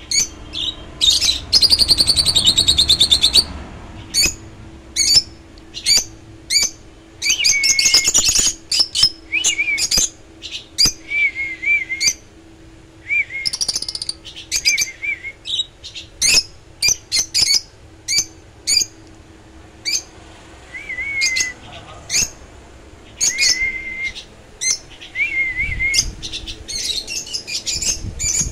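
Small caged parrots, lovebirds among them, chirping: many short, sharp, high chirps, with a longer buzzy trill about a second in and wavering calls now and then.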